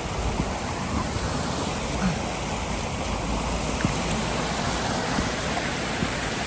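Rain-swollen creek rushing across a trail, a steady rushing of floodwater.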